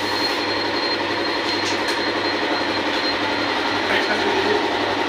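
Yamaha R15 motorcycle's single-cylinder engine idling steadily with an even pulse, freshly reassembled and started after its rebuild.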